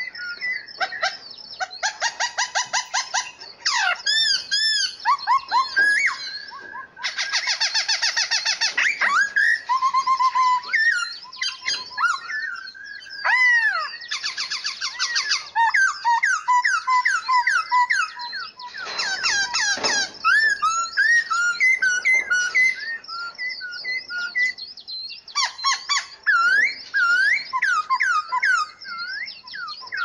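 Several caged songbirds singing and calling at once, almost without a break. The songs mix fast trills, whistled notes that slide up and down, and short chirps.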